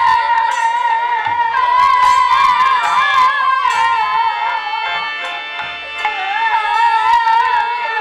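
Kirtan music: a high, continuous melody line that slides and wavers with ornaments, played over repeated percussion strokes.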